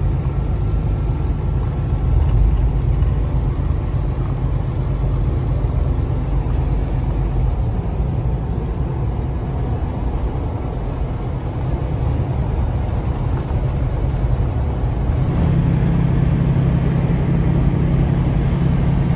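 Semi-truck running at highway speed through a road tunnel, heard from inside the cab: a steady low engine and road drone. Partway through, a deeper hum grows stronger and holds.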